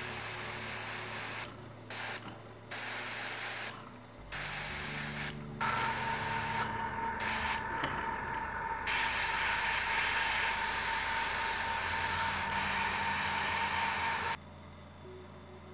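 Airbrush spraying acrylic paint: several short hissing bursts of air and paint with brief pauses between them, then one long spray of about nine seconds with a thin whistle in it, which stops shortly before the end.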